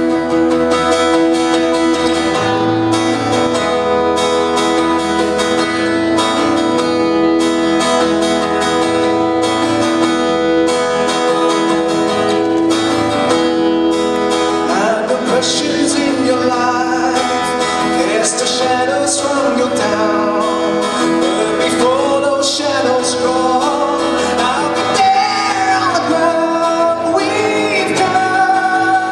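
Acoustic guitar played live in a song, an instrumental passage built on a steadily repeated note; from about halfway a wordless sung melody rises and bends over the guitar.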